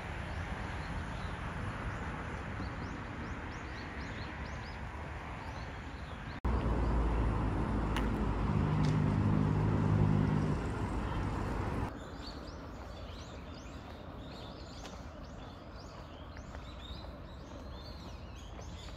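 Outdoor street ambience that changes abruptly twice: steady traffic hum with a few bird chirps, then louder road traffic with an engine note passing about halfway, then many small birds chirping over a quieter distant hum.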